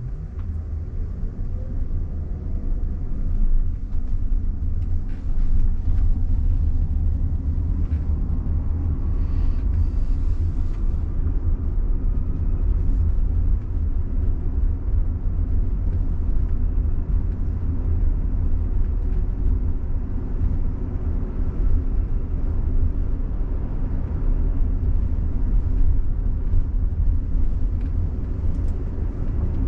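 Steady low road and tyre rumble inside the cabin of a moving Waymo robotaxi, an electric Jaguar I-Pace. It grows louder over the first few seconds and then holds steady.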